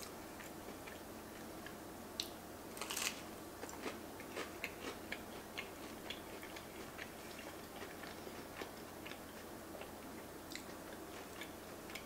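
Close-miked chewing of toasted grilled cheese sandwich: many small wet clicks and crunches, busiest in the first half, with a louder crunch about three seconds in.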